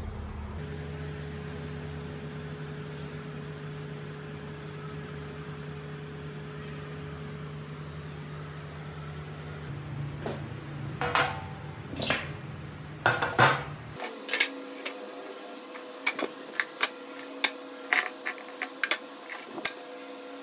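Steady hum, then from about halfway in a run of sharp metallic clinks and clatters: small disassembled Honda GX120 engine parts knocking against a stainless steel tray and the workbench as they are handled.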